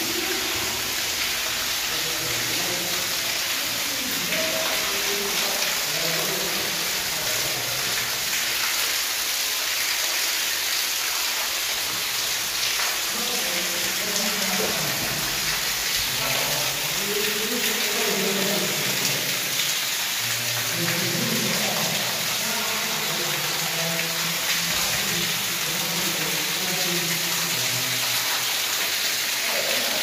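Water pouring down from above and splashing into a concrete storm-drain chamber: a steady, loud rush, with a low, indistinct murmur underneath.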